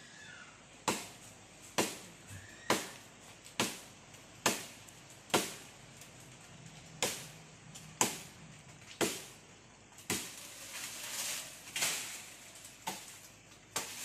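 Aruval billhook chopping into a mango tree branch: about a dozen sharp blows, roughly one a second, with a short pause near the middle. A hazier rustling noise rises between the blows about two-thirds of the way through.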